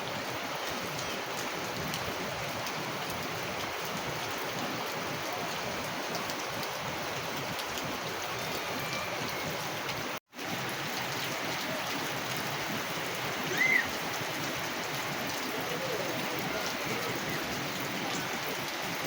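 Steady rain falling. The sound cuts out briefly about ten seconds in, and a short high chirp sounds a little past halfway.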